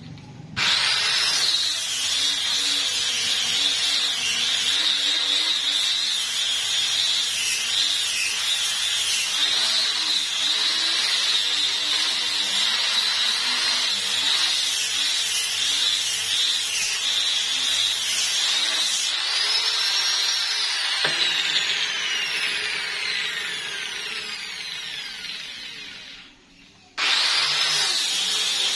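Handheld electric disc sander running against a wooden plank, sanding dried homemade wood filler flush with the surface. The motor starts about half a second in and its whine wavers in pitch as the pad is pressed onto the wood. Near the end it cuts out for under a second, then runs again.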